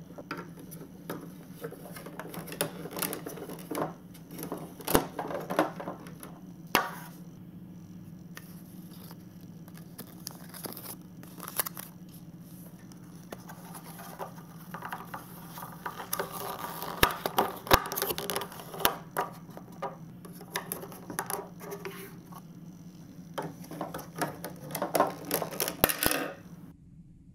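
Plastic marble-run track pieces being handled and snapped together: irregular clicks, taps and scrapes of hard plastic, some sharp and loud, over a faint steady low hum.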